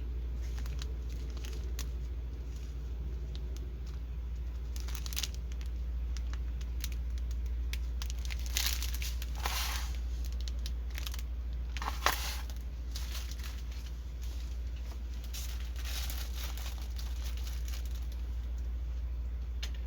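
Plastic packaging of a diamond painting kit crinkling and rustling as it is handled, in scattered bursts that are busiest in the middle, with one sharp click about twelve seconds in. A steady low hum runs underneath.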